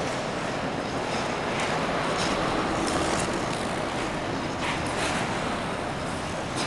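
Steady rushing noise of an indoor ice rink, with skate blades scraping and carving the ice a few times.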